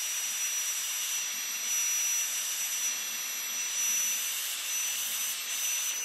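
Handheld craft heat tool (embossing heat gun) blowing steadily: a loud fan hiss with a thin high whine, drying wet ink on watercolour card. It cuts off right at the end as it is switched off.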